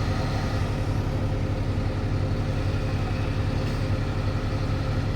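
Heavy diesel engine running at a steady pitch with a low, even hum, from the excavator or tipper truck working to free the stuck truck.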